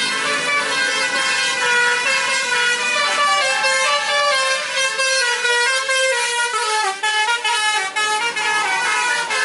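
Tourist bus's telolet horn, a set of multi-tone horns, playing a quick melody of short notes stepping up and down in pitch.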